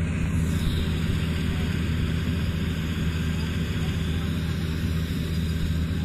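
Mini combine harvester's engine and threshing machinery running steadily with a low, even hum while it cuts a rice crop.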